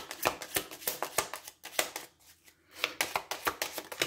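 Oracle cards being shuffled by hand: a quick run of crisp card clicks and slaps. It pauses for about a second near the middle, then picks up again.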